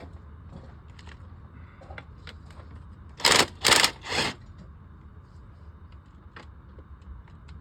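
Three short rattling bursts from a 3/4-inch impact gun, a little under half a second apart about three seconds in, with scattered faint clicks of tool handling over a steady low rumble.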